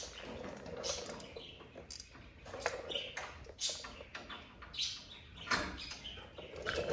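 Light metallic clicks, scrapes and small squeaks as an old front brake hose and its spring retaining clip are worked out of the frame bracket by hand.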